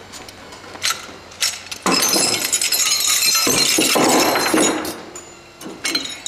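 A sackful of old metal plumbing fittings, brass valves among them, tipped out onto a wooden workbench: a few light clinks, then a loud clatter of metal pieces from about two seconds in to about five seconds, and a few more clinks as they are handled.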